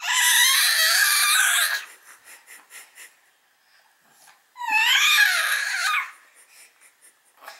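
Baby's high-pitched, wavering squealing cries in two loud bouts: one of about two seconds at the start and a shorter one a little past the middle.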